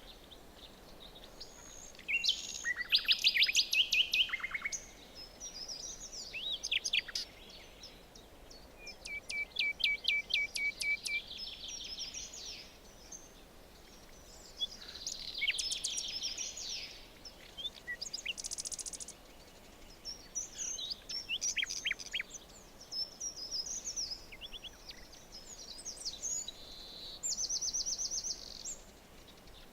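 Songbirds singing in a forest: bursts of quick trills and chirps every few seconds, over a faint steady background hiss.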